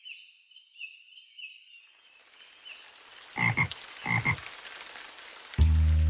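Animal calls: faint high chirping trills, then two loud, low double calls about three and a half and four seconds in. Music with a steady beat starts near the end.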